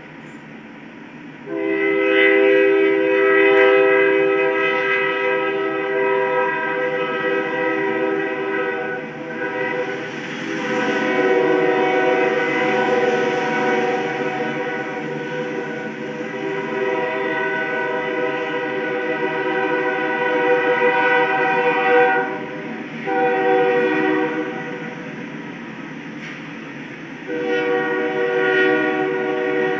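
Diesel locomotive's multi-chime air horn sounding the grade-crossing signal: two long blasts, a short one, then a long one starting near the end, over the rumble of a freight train approaching the crossing.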